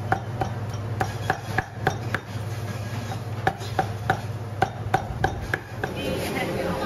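Cleaver chopping cooked turkey meat on a thick round wooden chopping block, sharp knocks about three times a second with a brief pause partway through, stopping shortly before the end. A steady low hum runs underneath.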